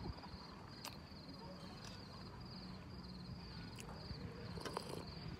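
Crickets chirping steadily in a fast pulsing trill, with a few sharp clicks of metal cutlery against a bowl and a short slurp near the end.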